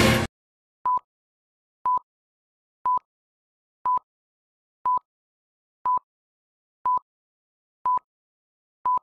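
Film-leader countdown beeps: a short, pure, high beep of the same pitch once a second, nine times in a row, ticking off the numbers 9 to 1. A burst of music cuts off abruptly just before the first beep.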